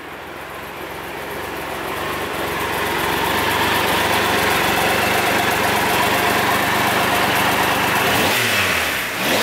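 Triumph Trophy 1200's three-cylinder engine idling, growing louder over the first few seconds and then holding steady. Near the end the throttle is blipped and the engine revs up and drops back.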